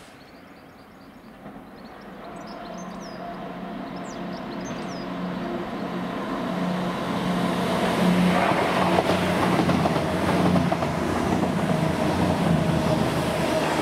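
Diesel train approaching on the line, growing steadily louder over the first eight seconds and then running loud and steady with a low engine hum.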